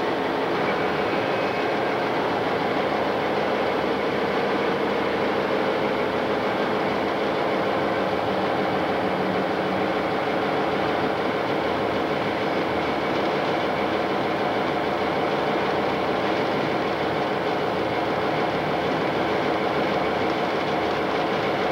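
Diesel locomotive running steadily as it rolls slowly along the track, heard from on board: a constant engine drone mixed with the rumble of wheels on rails.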